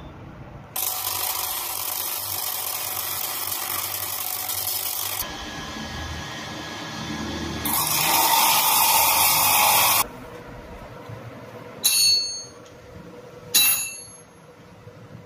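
A power tool runs in two loud, hissing spells, about four and two seconds long, with a quieter rumble between them. Then come two sharp, ringing metal clinks about a second and a half apart.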